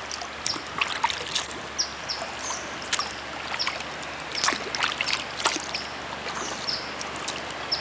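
Kayak paddle dipping and pulling through floodwater, one-handed: irregular short splashes and drips with light knocks.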